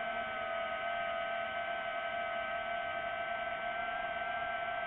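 DJI FPV drone's motors and propellers whining at a nearly steady pitch in cruising flight.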